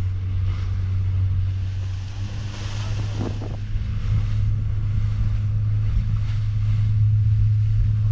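Small fishing boat's engine running steadily under way, a low even drone, with wind on the microphone and water splashing along the hull. The engine drone stops abruptly at the very end.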